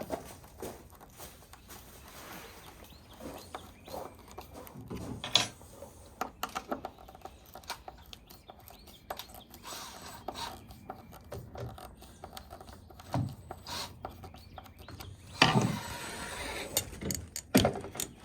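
Scattered knocks, clicks and rubbing from a bimini top's frame and mounting hardware being handled, with a few louder thumps near the end.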